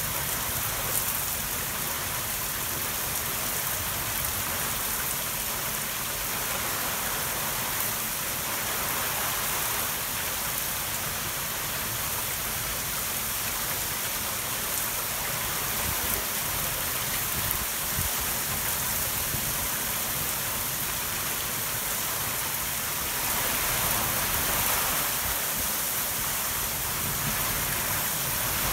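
Torrential thunderstorm rain falling steadily, a dense even hiss with no thunder heard. It grows slightly heavier about three-quarters of the way through.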